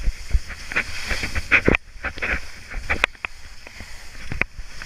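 Skis hissing and scraping over soft spring snow on a downhill run, with irregular sharp scrapes and knocks as the edges bite into the snow.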